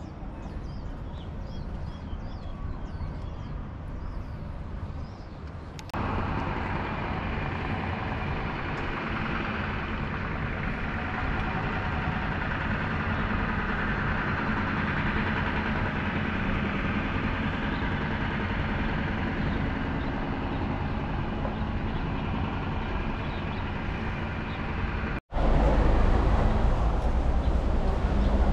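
Outdoor street ambience: a steady hum of road traffic. It steps up louder after about six seconds, with a few faint chirps early on. Near the end a much louder low rumble takes over after a brief cut-out.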